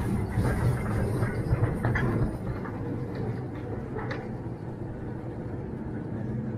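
1948 electric mine locomotive (mule) running along its track: a steady low hum, with a couple of sharp metallic clanks about two and four seconds in.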